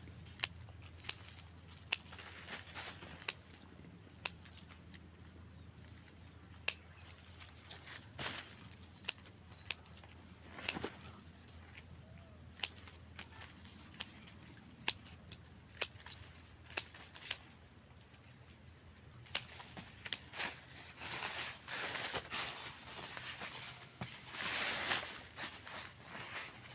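Pruning shears or scissors snipping tomato leaves and stems, a run of sharp clicks at irregular intervals. The foliage rustles over the last several seconds.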